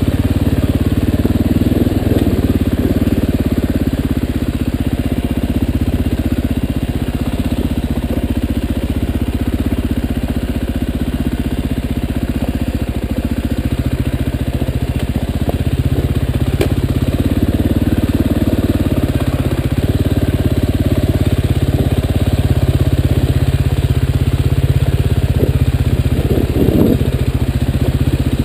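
KTM dirt bike engine running at low, slowly varying revs while crawling up rocky singletrack, with a few short knocks near the end as the bike goes over rocks.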